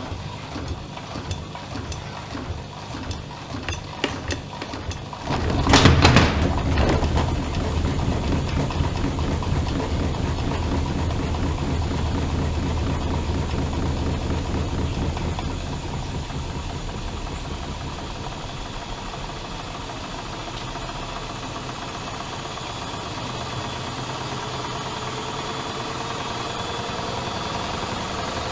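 Privileg Dynamic 7420 washing machine running. A series of ticks and clicks comes first, then about five seconds in a loud steady hum starts and eases off after about ten seconds. Near the end a motor whine rises slowly in pitch as the drum speeds up.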